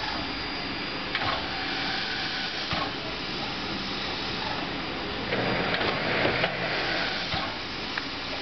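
Ty2 2-10-0 steam locomotive standing in steam, with a steady hiss and a mechanical chugging clatter from the engine, a few short knocks, and a louder stretch about five seconds in.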